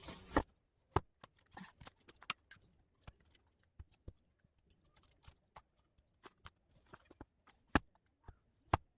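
Irregular sharp clicks and knocks, a few a second, with louder single knocks about a second in and twice near the end.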